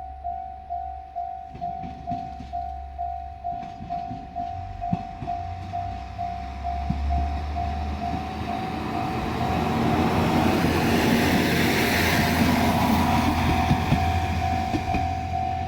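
Japanese level-crossing warning bell dinging steadily, about two and a half strikes a second. Partway through, a diesel train comes up and passes, its engine and wheels on the rail joints growing louder, loudest a few seconds before the end, with the bell still ringing over it.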